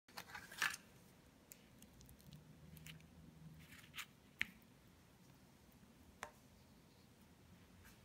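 Near-quiet room with a few faint, scattered clicks and light taps, the loudest a short cluster in the first second and single ones spread over the rest.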